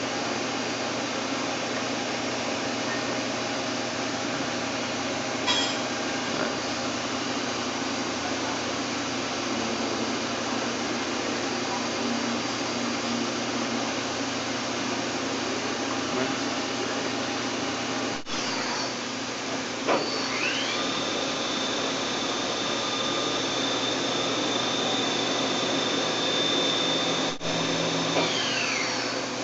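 Daewoo DMV 650 CNC vertical mill running with a steady machine hum; about two-thirds of the way in, its spindle whine rises quickly to a high steady pitch, holds for several seconds, then winds back down near the end: a spindle run-up and stop.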